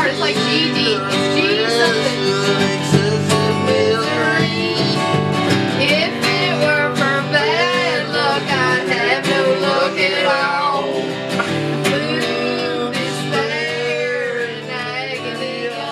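A song sung to acoustic guitar accompaniment, with plucked and strummed strings under the voice; it gets a little quieter near the end.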